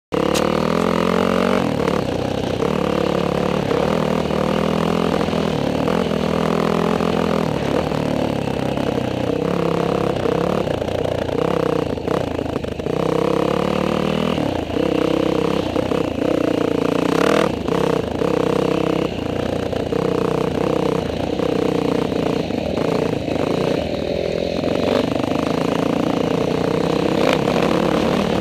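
Motocross dirt bike engine heard close up from a helmet-mounted camera, revving up and down in pitch as the bike rides the dirt track and shifts through its gears.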